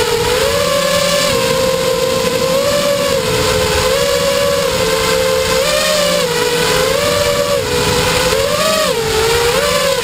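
Radio-controlled helicopter flying low, its motor and rotor giving a steady high whine whose pitch rises and falls every second or so.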